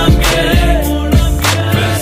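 Background music with a steady beat: a drum hit about every half second over sustained bass notes and chords.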